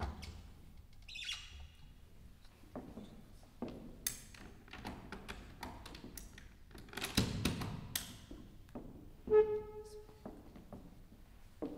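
Knocks, thumps and creaks of a pedal extender being set under a grand piano's pedals and an adjustable piano bench being adjusted, with two short squeaks, the louder one near the end.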